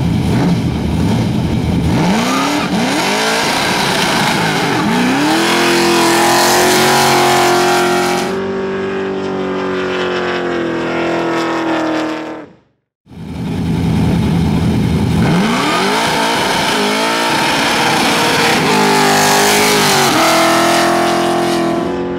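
Holden Commodore ute's LS1 V8 doing powerskids: the engine revs up in quick rising sweeps, then is held at high revs with the rear tyres spinning. This happens twice, with a brief break just before the middle.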